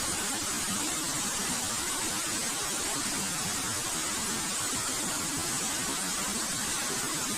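Waterfall: falling water rushing steadily, a constant hiss without a break.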